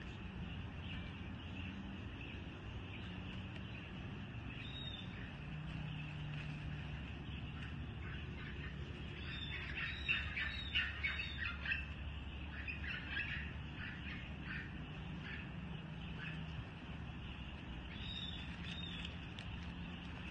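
Outdoor ambience: a steady low hum with a cluster of short, high chirping calls about halfway through, and a few fainter ones before and after.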